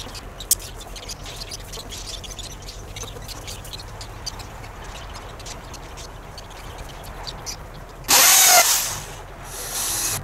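Power drill running in two short bursts near the end, the first louder and the second quieter, as it drives fasteners into the timber of a chicken coop's floor frame. Before that, light knocks and handling of wooden boards, with one sharp knock about half a second in.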